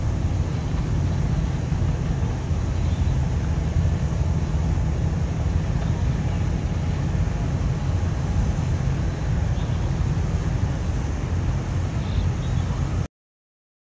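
Steady low rumble of outdoor ambient noise with wind buffeting the microphone, cutting off abruptly near the end.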